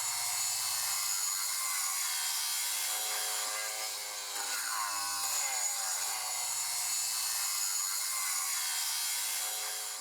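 Milwaukee flathead angle grinder with a Cera Turbo XL ceramic flap disc grinding metal: a steady whine over a hiss, the motor's pitch sagging and recovering as the disc is pressed in, with a brief drop in level a little before halfway.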